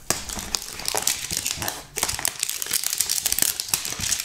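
Plastic wrap being torn and crinkled off a cardboard trading-card hanger box, a dense run of sharp crackles with a brief pause about two seconds in.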